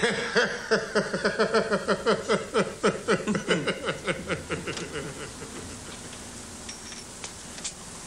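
A man laughing heartily, a long run of quick "ha-ha" pulses, about four or five a second, that taper off over about five seconds.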